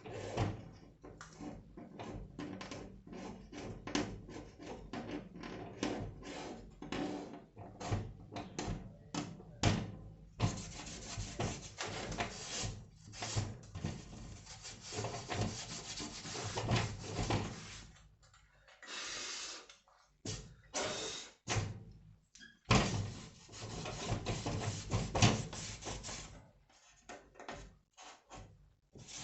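Hand work on the canopy: scraping and rubbing noise in several long stretches, broken up by many irregular knocks and clatters.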